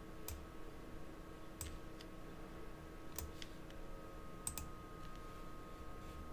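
Faint computer mouse clicks, about five spaced a second or more apart with two in quick succession about four and a half seconds in, over a faint steady electrical hum.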